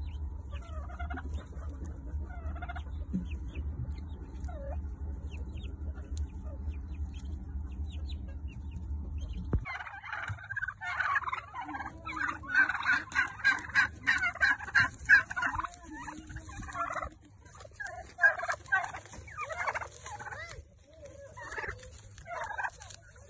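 A flock of domestic turkeys gobbling: a dense run of gobbles from about ten seconds in, then shorter gobbles near the end. Before that, a steady low rumble with faint peeping of turkey poults.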